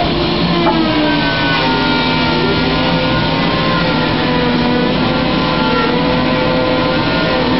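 Wood-processing machinery running steadily: a dense mechanical noise with several motor whines that drift slowly in pitch.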